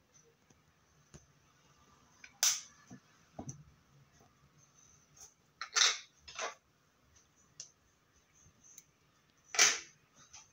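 Four brief sharp noises a few seconds apart, with a few fainter ones in between; the last, near the end, is the loudest.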